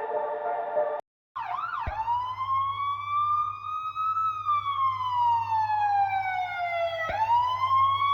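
Siren sound effect wailing: a quick warble, then a slow rise and fall in pitch, dipping sharply and rising again near the end. It begins about a second in, after the tail of a soft ambient music clip and a brief silence.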